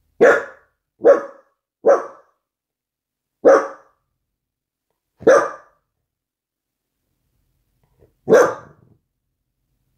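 Dachshund barking: six single short barks, three in quick succession, then two more spaced a couple of seconds apart and a last one after a longer pause.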